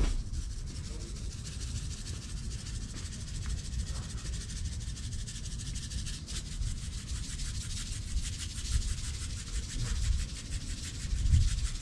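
Hand salt grinder being twisted over a rack of ribs: a steady gritty grinding made of fine, rapid clicks, with a low rumble underneath.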